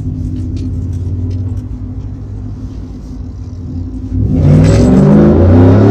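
Steady low rumble of a Ford F-150's 5.0 Coyote V8 and the road, heard from inside the cab while driving. About four seconds in, a much louder sound with quickly stepping tones cuts in over it.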